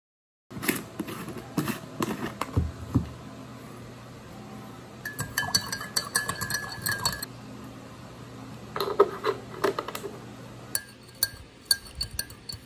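A metal spoon stirring tea, clinking and scraping against the sides of a mug and a pot in several bouts. Some clinks ring briefly.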